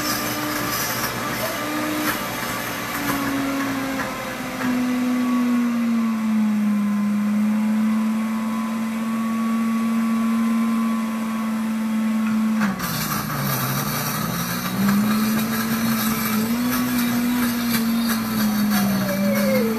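Pampered Chef Deluxe Cooking Blender running its smoothie program, the motor blending a fruit smoothie. The motor's pitch drifts as the program varies the speed. About two-thirds of the way through the sound changes suddenly, and the pitch dips briefly before it recovers.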